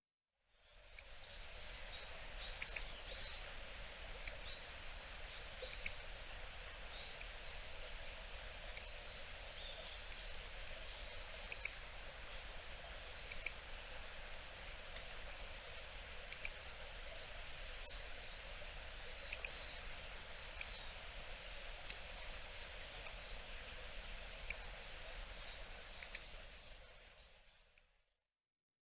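Hawfinch giving its short, sharp ticking calls, repeated about every second and a half, some in quick pairs.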